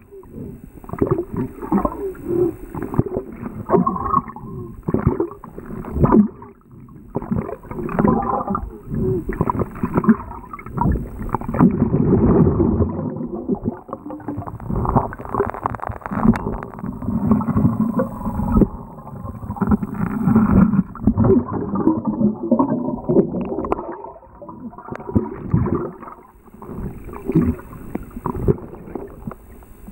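Muffled underwater sound from a camera held underwater while swimming: water swirling and gurgling, broken by many irregular knocks and thumps.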